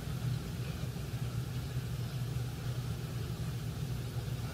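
Steady low hum of background room noise, with nothing else happening.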